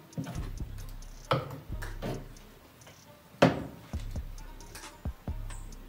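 Kitchen knife chopping on a mango-wood cutting board: irregular sharp knocks, the loudest about three and a half seconds in.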